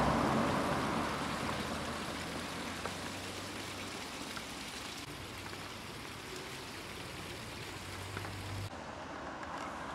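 A car drives past on the road, its tyre noise fading away over the first two seconds, leaving a steady, even hiss of outdoor noise.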